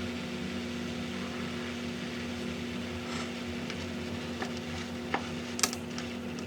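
Small electric motor and gear drive of a fake aquarium lamp running with a steady hum, freshly lubricated with Super Lube; a couple of light clicks about five seconds in.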